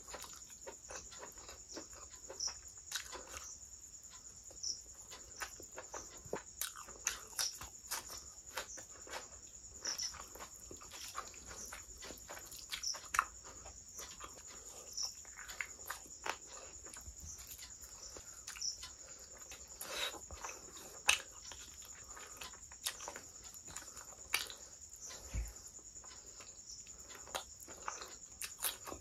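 Close-up eating sounds of a person chewing and smacking her lips while eating rice and curry with her fingers, in irregular short wet clicks and smacks. A steady high-pitched whine runs underneath.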